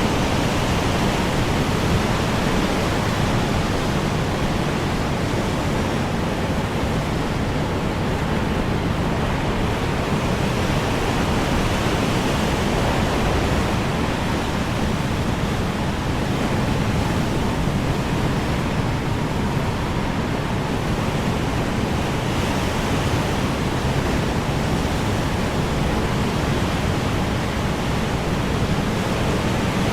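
Strong wind blowing steadily: an even, dense noise, heaviest in the low range, with only slight swells in strength.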